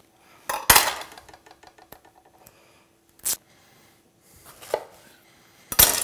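Damascus steel kitchen knife cutting vegetables on a wooden cutting board: a few separate sharp knocks, the loudest just under a second in and near the end, with a run of light quick taps between.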